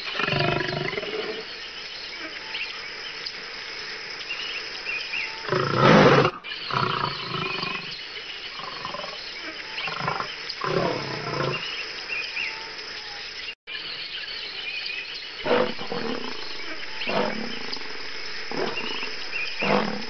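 Lion roaring in a series of calls, the loudest about six seconds in, with further calls at intervals, over faint high chirping in the background.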